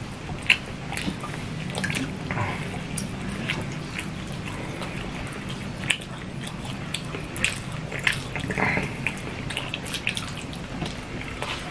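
Two people eating rice and fish curry with their hands from metal plates: scattered wet mouth clicks and chewing smacks, with fingers squishing and mixing rice on the plates, over a low steady hum.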